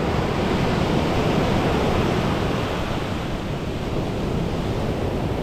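Ocean surf washing on a beach, a steady rushing with wind buffeting the microphone.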